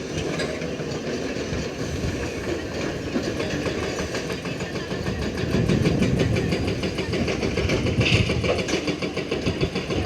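Excavator's diesel engine running with a fast, even throb, growing louder about halfway through.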